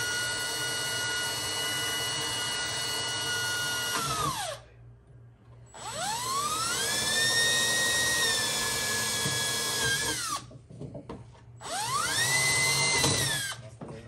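Cordless drill drilling pilot holes into a boat's transom. There are three runs of a steady motor whine: the first stops about four seconds in, and the next two each wind up, hold, and wind down, with the last one short and near the end.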